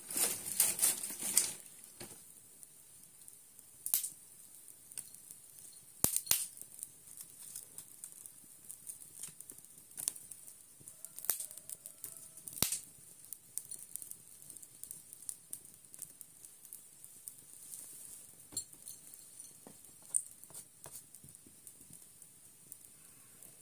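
Fire crackling in an irori hearth: sharp pops at irregular intervals, a quick cluster in the first second and a half, then single pops every few seconds over a faint steady hiss.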